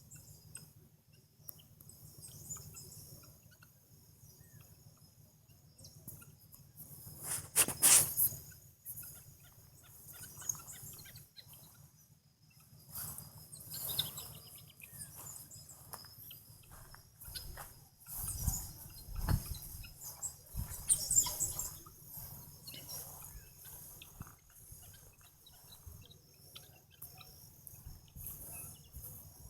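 Helmeted guineafowl calling in harsh, scratchy bursts. The calls are loudest about eight seconds in and again around twenty seconds, over a steady high trilling of insects.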